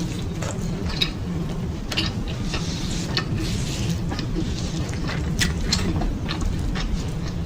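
Close-miked eating sounds: chewing food with irregular small wet clicks and crackles, over a steady low rumble.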